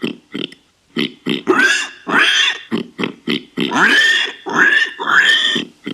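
Warthog grunting and squealing in a rapid series of short calls, with longer squeals near the middle and toward the end.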